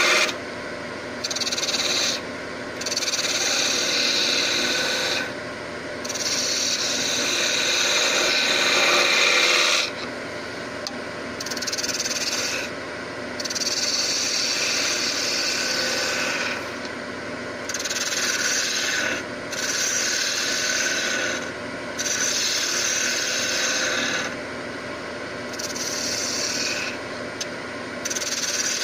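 Gouge cutting a spinning block of spalted birch on a woodturning lathe: a hissing scrape in repeated passes of a few seconds each, broken by short breaks where the tool leaves the wood.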